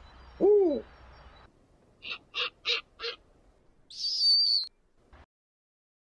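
Snowy owl calls: a single hoot that rises and falls in pitch, then four short, evenly spaced barking notes, then a brief high screech.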